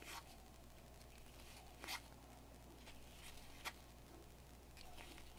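Pokémon trading cards being flipped through by hand: faint, soft swishes of card sliding across card, one every second or so, the clearest just under two seconds in.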